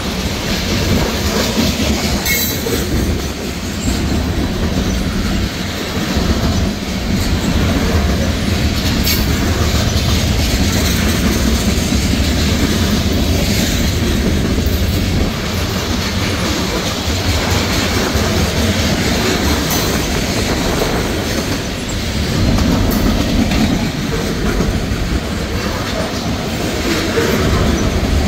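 Freight cars of a mixed freight train (covered hoppers and tank cars) rolling past: a steady rumble of steel wheels on the rails with clickety-clack, and a few sharp clicks scattered through it.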